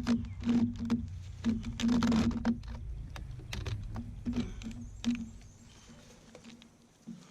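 Pocket chainsaw, a flexible chain pulled back and forth by its handles, rasping through a cedar log in irregular strokes. The strokes thin out in the second half and it is faint near the end.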